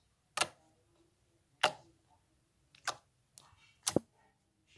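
Pink slime being pressed and stretched, giving a series of sharp popping clicks, about one every second and a quarter, described as super loud.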